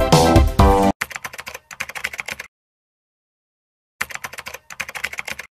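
Electronic music cuts off about a second in, followed by a keyboard-typing sound effect: two runs of rapid clicks with a silent gap between, typing out on-screen title text letter by letter.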